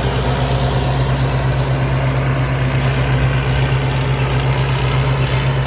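Thai Seng combine harvester running steadily while harvesting rice, a loud even engine drone with a thin high-pitched whine held over it.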